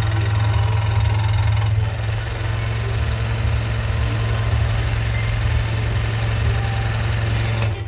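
Dowen Pagio scroll saw running steadily, its blade cutting through a thin wooden blank. About two seconds in, the cut ends and the blade runs free without wood. The sound cuts off just before the end.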